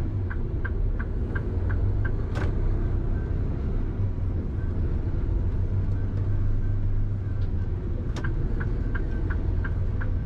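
Large truck's diesel engine and road noise running with a steady low rumble while driving. A regular ticking at about three beats a second sounds at first and again near the end, typical of the turn-signal relay as the truck nears an intersection. There are two sharp clicks, about two seconds in and around eight seconds.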